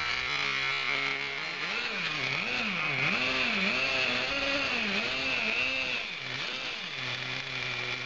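Small nitro engine of a Traxxas T-Maxx RC truck running, its pitch rising and falling over and over as it is throttled up and down, with a steadier drone at the start and near the end. A steady high whine sounds alongside throughout.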